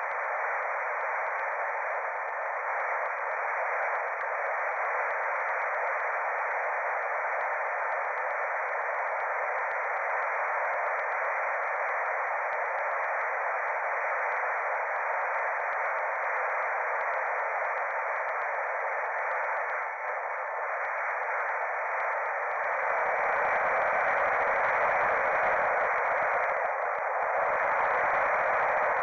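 Small FPV flying wing in flight: its electric motor and propeller with rushing air, picked up by the onboard FPV camera's microphone and sent over the analog video link, so it comes through as a steady, thin, hissy drone. About three-quarters of the way through it turns fuller and a little louder.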